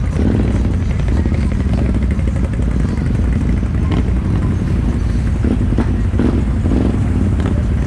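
ATV and side-by-side engines running at low revs in a steady low rumble, with the nearest machine loudest. A few short knocks and rattles come through around the middle.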